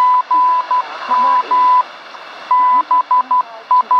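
Morse code call sign from a shortwave standard time-signal station on 15 MHz, heard through a Sony ICF-2001D as a single steady tone keyed in dots and dashes, with a short pause midway. Static hiss runs underneath.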